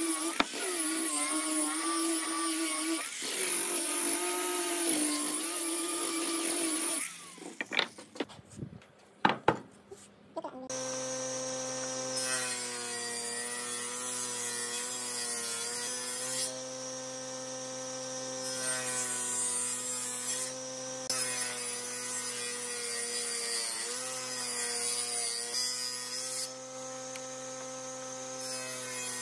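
Angle grinder with a sanding disc sanding wooden posts for about seven seconds, its whine wavering as it is worked over the wood. After a quieter gap with a few sharp knocks, a table saw runs steadily and rips a pine board lengthwise, its tone dipping briefly a few times.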